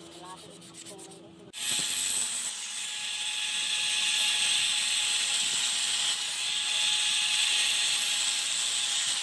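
About a second and a half in, an angle grinder starts loud and runs steadily, its disc grinding the edge of a spring-steel cleaver blade with a steady high hiss over a constant whine.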